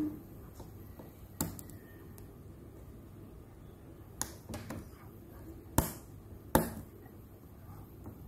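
A few small sharp plastic clicks and taps, about six spread out, as the transparent retainer (scissor clip) of an ASUS TUF Gaming F15 laptop key is fitted back into place with fingers and metal tweezers.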